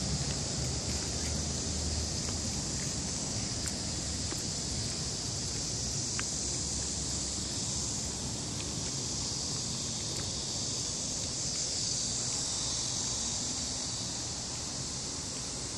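Insects trilling steadily in a continuous high-pitched chorus, with a low rumble underneath.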